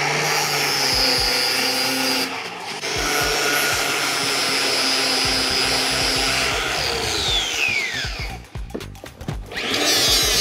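Angle grinder with a Tiger Paw abrasive disc grinding the coating off a steel pipe end, its whine steady under load; it winds down with a falling whine about seven seconds in. Near the end a die grinder with a flap wheel starts up with a higher whine.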